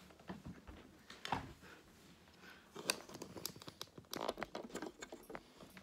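Scattered rustling, clicks and a few light knocks of a person moving about and handling things close to the microphone, busiest in the second half.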